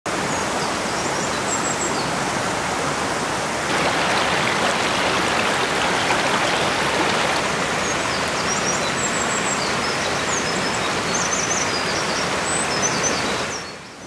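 Mountain stream rushing over rocks, a steady rush of water that gets louder about four seconds in and fades out at the end.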